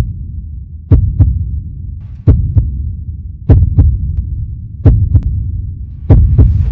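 Slow, loud heartbeat sound effect: five double thuds, lub-dub, about one every 1.3 seconds, each fading into a low rumble.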